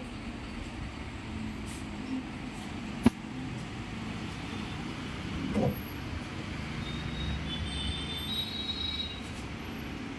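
Steady low mechanical rumble, with one sharp click about three seconds in and a dull knock a little before six seconds.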